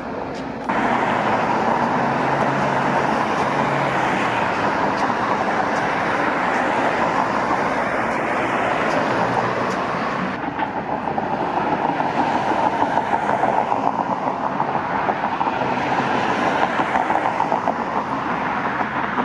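Steady, loud rushing of a passing vehicle, like road and wind noise. It jumps up sharply just under a second in and flutters more unevenly in the second half.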